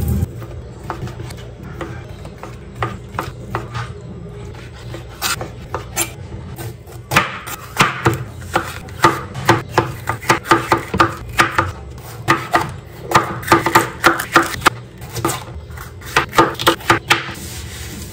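Chef's knife chopping on a chopping board: a few scattered knocks at first, then quick runs of sharp strikes, several a second, as a red bell pepper is sliced, stopping shortly before the end.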